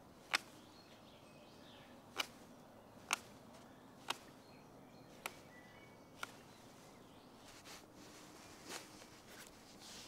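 Small blade of a Victorinox Huntsman pocket knife cutting chips off a wooden spoon blank: six sharp snicks about a second apart, then a few softer cuts near the end. Faint bird chirps in the background.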